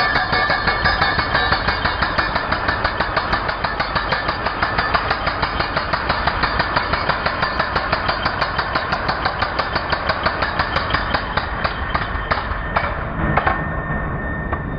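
INGCO 16 kg electric concrete breaker (demolition hammer) running, pounding with rapid, even blows several times a second. The hammering stops shortly before the end, leaving a steady whine.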